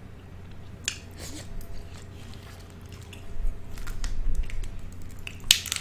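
Close-miked eating sounds: a few sharp cracks and snips of crawfish shell being broken and peeled about a second in, then wet chewing from about three seconds in, with another sharp crack near the end.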